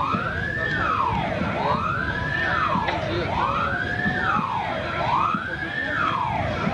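A wailing siren, its pitch sweeping up and back down about once every second and a half to two seconds, four times over.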